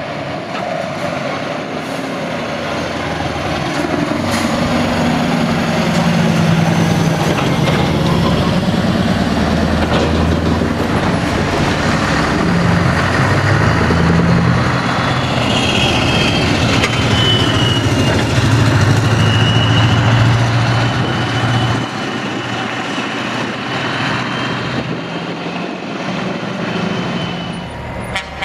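Heavy Scania and Volvo lorries driving off one after another, their diesel engines pulling away and the engine note stepping up and down as they accelerate. It is loudest through the middle, with a thin high whistle over it for several seconds past halfway.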